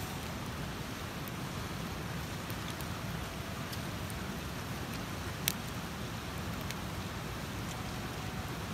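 Wood campfire crackling: a steady hiss of burning with scattered small snaps and one sharper pop about halfway through.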